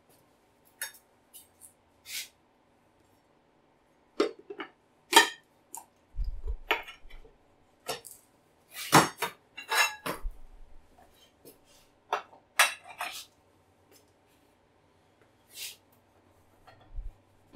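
Irregular sharp metallic clanks and clicks from working a manual motorcycle tire changer: the steel duckhead attachment and mount bar knocking against each other and the wheel. A couple of dull thuds come near the middle.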